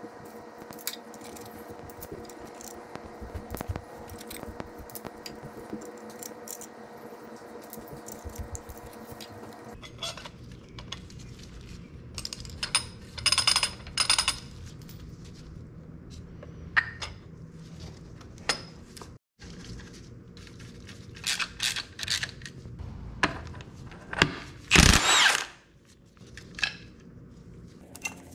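Tool work on a motorcycle's clutch: a steady hum with light clicking for about the first ten seconds, then scattered clicks and clinks of tools and parts, broken by short power-tool runs, two in quick succession about halfway through and the loudest, about a second long, near the end.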